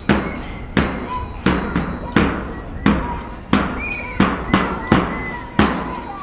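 Marching bass drum beaten in a steady, even rhythm, about one and a half booming strikes a second, each ringing out before the next.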